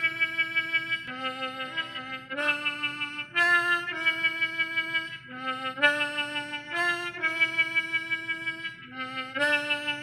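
Homemade instrumental music played on a harmonica and an electrified clothesline: a slow tune of held notes that change every second or so, over a lower part that steps between two pitches.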